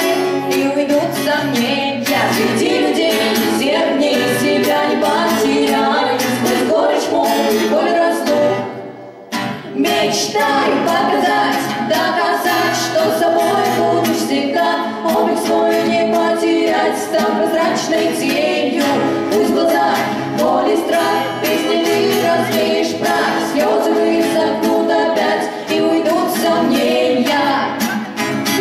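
Live performance of female voices singing together in harmony over an acoustic guitar, with a brief dip in level about eight seconds in.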